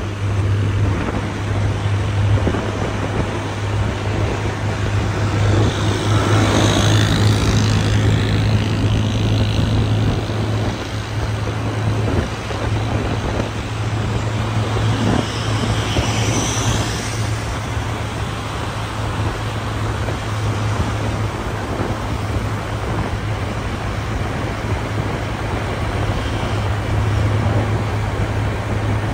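Motorcycle riding at highway speed: a steady low engine drone under a wash of wind and road noise, with surrounding traffic. The sound swells twice with a hiss, about a quarter of the way in and again just past halfway.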